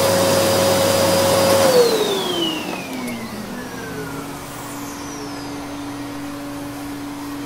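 Canister vacuum cleaner running with a steady whine, then switched off about two seconds in, its whine falling in pitch as the motor spins down. A quieter, lower steady hum carries on afterwards.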